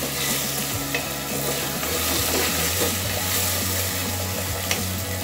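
Soaked rice sizzling as it fries in hot oil in a pressure cooker pot, stirred and scraped against the metal with a wooden spatula.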